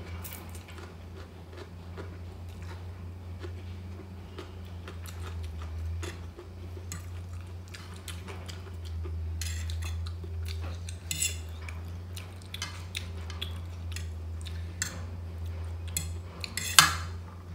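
Fork and spoon clinking and scraping on a plate while noodles are twirled and eaten, with a sharper clink near the end. A steady low hum runs underneath.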